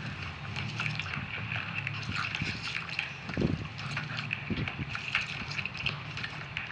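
Wet slurping and squishing of soft jelly candies being bitten, sucked and chewed, with many small irregular smacks and clicks over a low steady hum.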